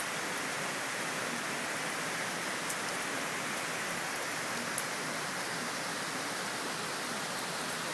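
Heavy rain falling steadily on trees and foliage, an even hiss with a few sharp ticks of drops landing close by.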